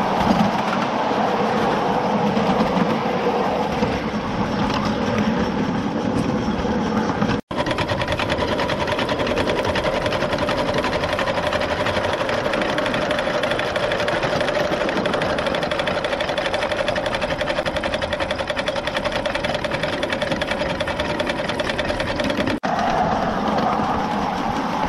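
Ride-on 7½-inch-gauge live steam train rolling along the track: a continuous fast rattle and clatter of wheels on rail, with a steady whine running through it. The sound drops out for an instant twice.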